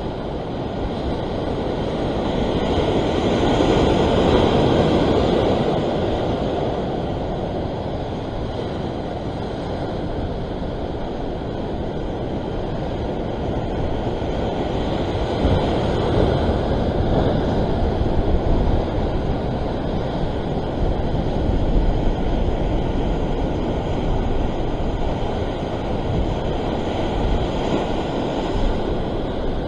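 Rough sea surging and washing over the rocks below, a steady rushing roar that swells with the bigger surges about four seconds in and again around the middle.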